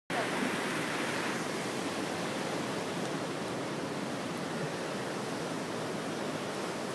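Steady, even rushing of ocean surf.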